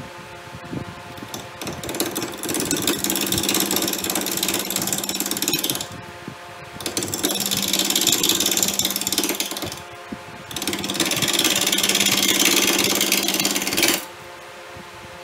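A power tool cutting black walnut in three bursts of a few seconds each, separated by short pauses. A steady hum continues between the bursts.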